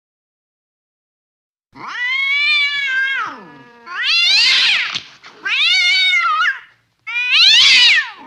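Angry domestic cat yowling: four drawn-out calls, each rising and then falling in pitch, starting a little under two seconds in.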